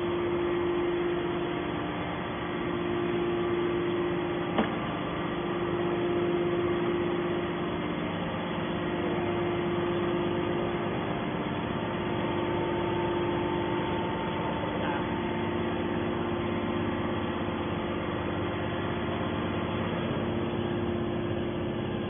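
Hydraulic scrap-metal baler's power unit running steadily between cycles: an even mechanical hum with one strong steady tone, and a single sharp click about four and a half seconds in.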